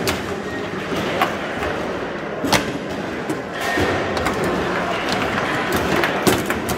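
Foosball in play: the ball and rod-mounted plastic players knock sharply against each other and the table a handful of times at irregular intervals, over a steady murmur of a large hall.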